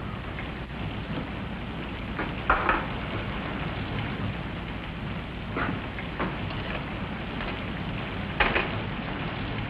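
Steady hiss of rain falling on a roof, a sound effect in an old, narrow-band recording. Three short, sharp sounds stand out, about three seconds apart.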